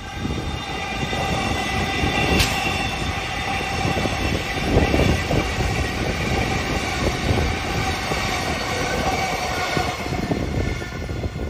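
Alstom X'Trapolis 100 electric suburban train passing close by. Its wheels rumble steadily on the rails under a steady high whine, with one sharp click about two and a half seconds in and heavier thumps near the middle.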